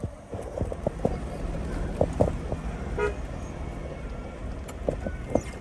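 Vehicle driving along a rough road with a steady low rumble and scattered knocks, and a short horn toot about three seconds in.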